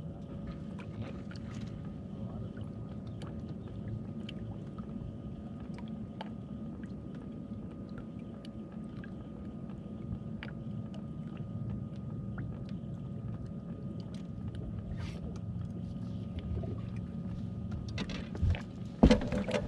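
Steady low hum with a faint thin whine from a bass boat's electric trolling motor, with small ticks throughout. A few loud knocks on the boat deck between about 18 and 19.5 seconds in.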